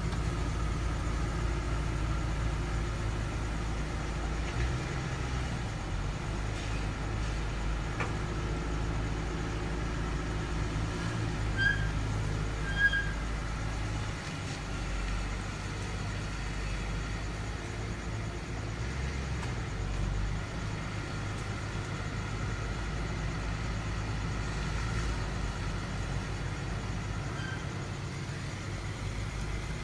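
A 2009 Ford Mustang GT's 4.6-litre three-valve V8 idling steadily through its stock exhaust.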